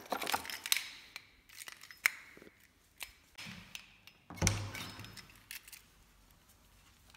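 Clicks and rattles of small objects being picked up and handled, a key fob on a lanyard among them. About four and a half seconds in comes a heavier thump as a door handle is worked and the door swings open.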